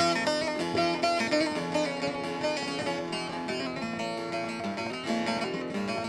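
Bağlama (saz) played solo, rapidly strummed notes over steadily ringing strings: the instrumental introduction to a Turkish folk song (türkü).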